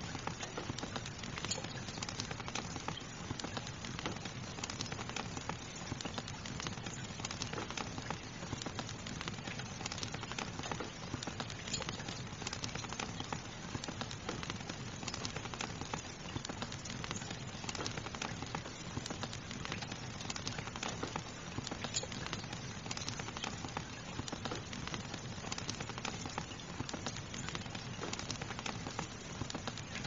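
Steady rain hiss mixed with a fireplace fire crackling, with frequent small pops and snaps.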